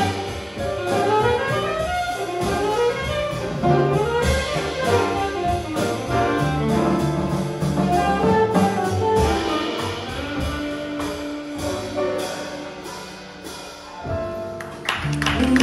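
Live jazz quintet playing: saxophone melody lines over piano, double bass and drums. The music grows quieter late on, then swells again near the end with cymbal strokes and a held note.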